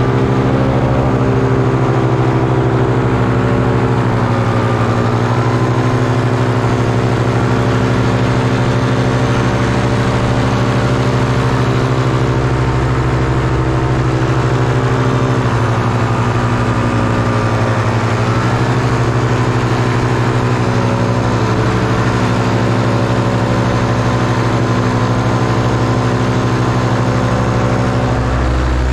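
Paramotor engine running steadily under power, heard from on board, its pitch shifting slightly a few times.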